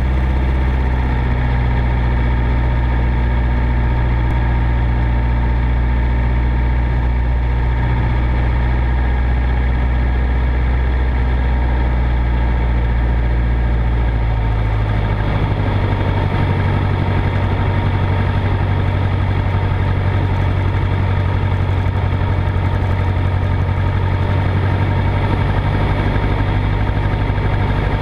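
Single-engine propeller of a 1946 Commonwealth Skyranger light plane running steadily in flight, heard from inside the cockpit. About halfway through, the engine's low drone shifts to a slightly higher pitch and stays there.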